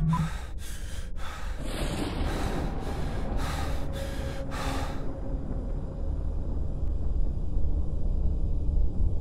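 Heavy, rapid breathing, a noisy gasp about every half second for the first five seconds, then a low rumbling drone.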